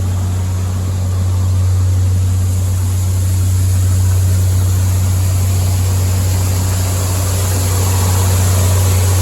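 Farm tractor engine running at a steady speed: an even low drone with a hiss above it, no change in pitch.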